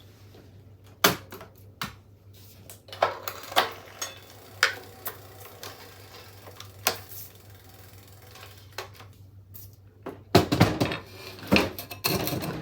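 Metal hand tools and bicycle parts clinking and clicking in scattered sharp taps, with two spells of rapid clicking near the end.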